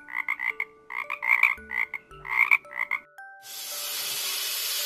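Frog croaking: quick clusters of short ribbit croaks for about three seconds. Then a snake's hiss starts, steady and unbroken.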